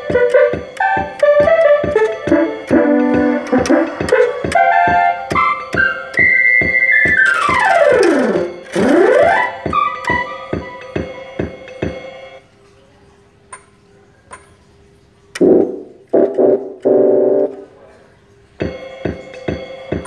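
Keyboard and synthesizer music with a steady beat, with a synth glide that falls and rises about eight seconds in. The music drops out for several seconds past the middle, leaving a few short tones, then comes back near the end.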